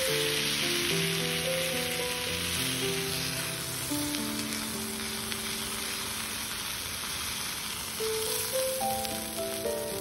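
Oil and food sizzling in a hot cast-iron skillet on a camp stove, a steady sizzle that is strongest in the first few seconds, under background music of gentle held notes.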